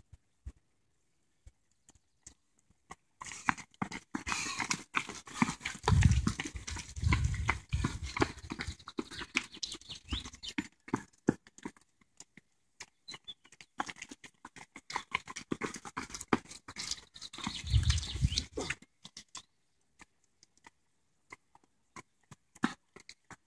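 Running footsteps of race runners passing on a brick-paved path: many quick, overlapping footfalls, with two busier, louder stretches, the first about a quarter of the way in and the second around three-quarters, each with a low rumble.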